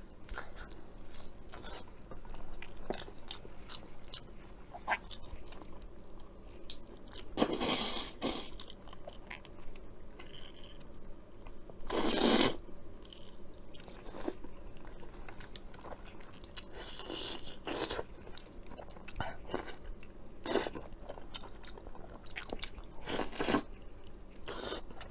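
Close-up eating sounds of a person biting and chewing blood sausage: wet mouth smacks and clicks throughout, with two louder, longer noisy bursts about 8 and 12 seconds in.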